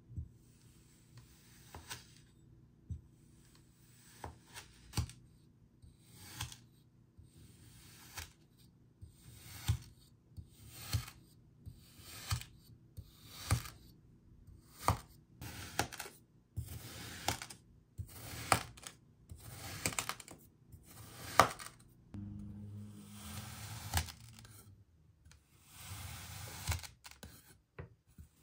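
Kinetic sand being cut and squished: a run of short, sharp cutting strokes about a second apart, giving way in the last few seconds to longer, softer crumbling and pressing sounds.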